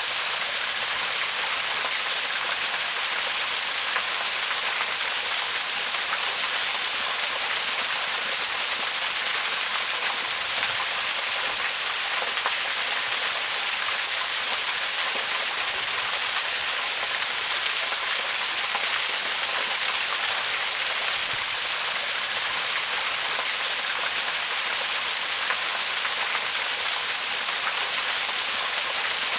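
Waterfall: a steady, unbroken rush of falling water, a dense even hiss flecked with fine splashing, weighted toward the high end with little low rumble.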